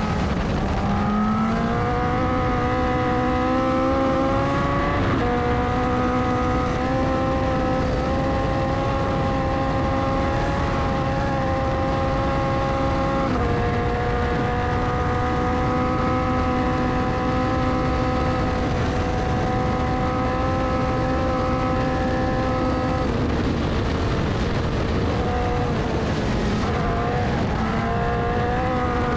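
Race car engine heard from the open cockpit, pulling hard up a hillclimb: its pitch climbs, then steps down at gear changes about five and thirteen seconds in and holds steady at high revs. Around twenty-three seconds in it eases off and wavers, then picks up again near the end, over constant wind and gravel-tyre noise.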